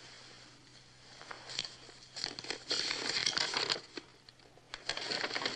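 A folded sheet of paper being unfolded and handled, rustling and crinkling in irregular bursts, loudest between about two and four seconds in.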